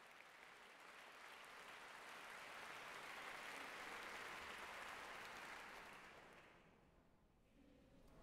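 Faint audience applause in a large concert hall, swelling and then dying away about two-thirds of the way through, leaving near silence.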